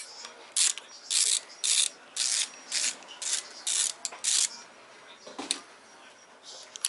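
Ratchet wrench backing out oil pan bolts, about eight quick ratcheting strokes roughly two a second. It stops about four and a half seconds in, and one click follows a second later.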